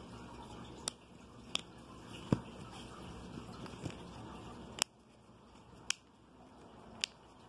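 Sharp plastic clicks, about seven at irregular intervals, as the Rokit One phone's plastic casing is squeezed and worked apart by hand, over a faint steady background hiss.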